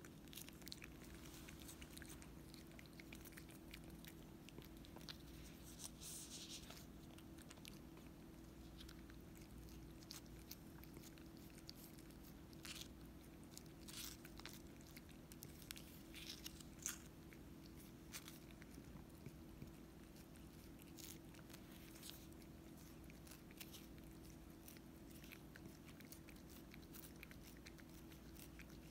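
Cat licking puree treat from a squeeze tube: faint, irregular wet smacks and tongue clicks over a low steady hum.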